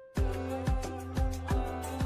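Background music with a steady beat of about two beats a second over held notes, coming in after a brief break at the very start.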